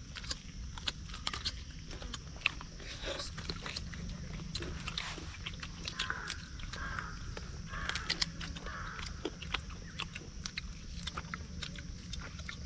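Close-up chewing and biting: teeth tearing roasted chicken meat off the bone, heard as many small wet clicks and crunches.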